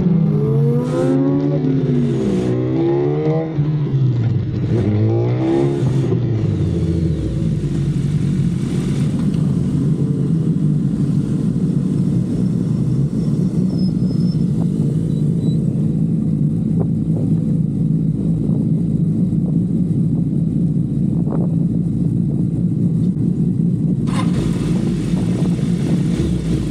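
Superbike's inline-four engine revving up and down for the first few seconds, then running at a steady pitch, with a higher rushing noise joining near the end.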